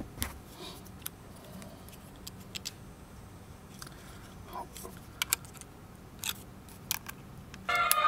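Sharp clicks and taps of metal XLR connectors being handled, unplugged and plugged together, some in quick pairs. Near the end, music starts again.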